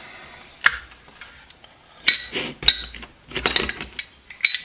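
Steel sockets and hex-drive pieces clinking as they are set down into their metal socket box: several sharp metallic clinks, one alone under a second in, then small clusters about two and three and a half seconds in and another near the end.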